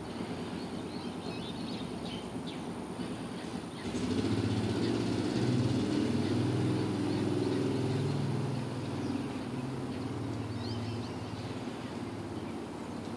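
Low engine drone that swells about four seconds in, holds, and fades away after about eight seconds, over a steady background hiss.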